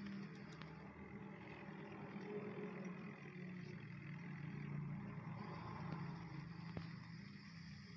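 Swaraj 855 tractor's diesel engine running steadily at low revs.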